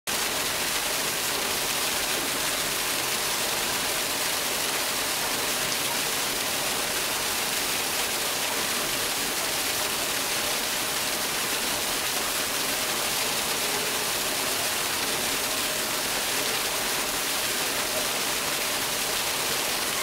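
Small artificial waterfall: a thin stream of water falling into a pool, splashing steadily on the water surface.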